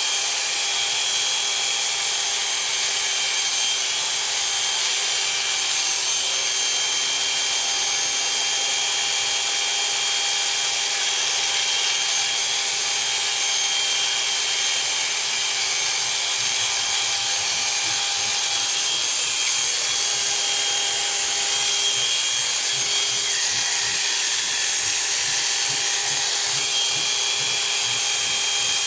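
Oster Classic 76 electric hair clippers running steadily, a constant motor hum with a high buzz over it, cutting hair clipper-over-comb.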